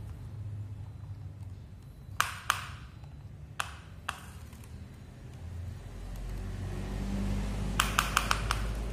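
Sharp plastic clicks from a toy excavator's arm and bucket being worked by hand: four single clicks, then a quick run of about five near the end, over a steady low hum.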